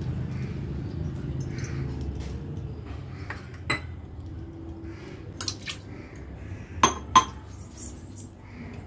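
Metal kitchenware clinking: a few sharp knocks, two loud ones close together near the end, over a low hum that dies away in the first few seconds.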